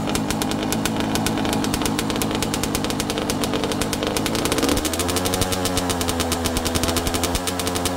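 Yamaha YZ two-stroke dirt bike engine running on its stand with a fast, even crackle of firing pulses; a little past halfway the throttle is opened and the revs rise, then hold higher and waver.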